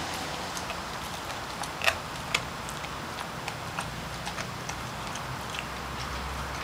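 A Rottweiler chewing a raw mackerel: irregular wet clicks and crunches of teeth on the fish, two louder crunches about two seconds in.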